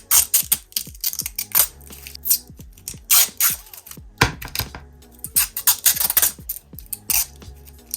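Irregular sharp clicks and clatter of display-stand parts being handled and fitted together, over background music.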